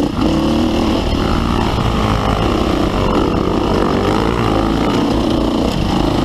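Dirt bike engine running hard under load, its pitch rising and falling as the throttle is worked on a rough uphill trail.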